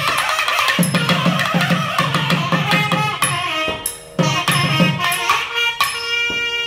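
Two nagaswarams playing a Carnatic melody together over two thavil drums beating out strokes with deep thumps. The sound dips briefly about four seconds in.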